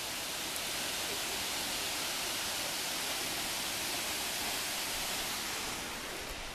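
Waterfall: a steady rushing hiss of falling water, dropping a little in level near the end.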